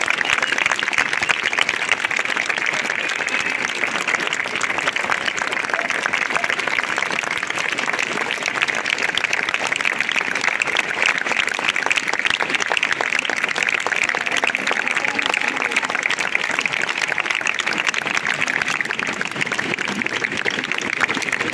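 Crowd applauding steadily, a dense, unbroken clapping that holds its level throughout.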